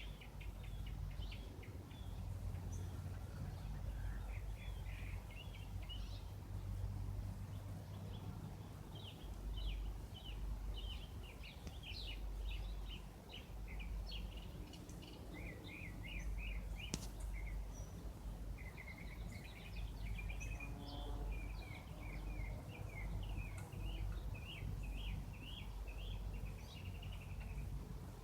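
Small birds chirping in quick, repeated series over a steady low rumble.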